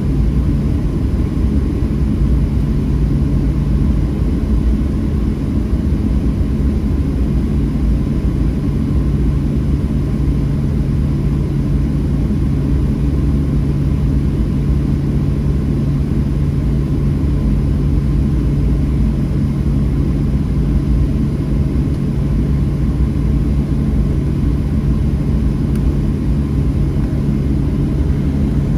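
Steady rumble of a Boeing 737-700 taxiing at low engine power, heard inside the passenger cabin, with a steady low hum from its CFM56-7B turbofan engines.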